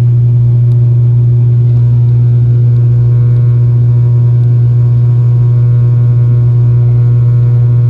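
ATR 72-600 turboprop in climb power, heard from inside the cabin beside the engine. Its Pratt & Whitney PW127 engine and six-bladed propeller make a loud, steady, deep drone with fainter higher tones above it.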